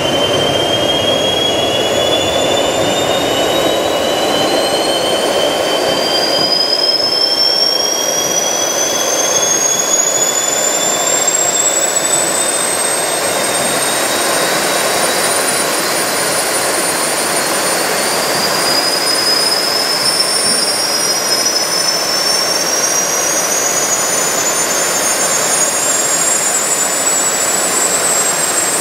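Three small jet turbines running together with a loud, steady rushing roar. Their separate high whines climb slowly in pitch one after another as the turbines spool up during warm-up.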